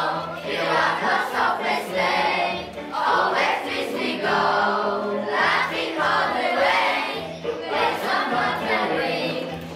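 A group of schoolchildren singing a Christmas song in English together in chorus.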